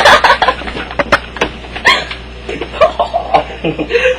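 Close-up clicks and knocks mixed with short non-word vocal noises from a person.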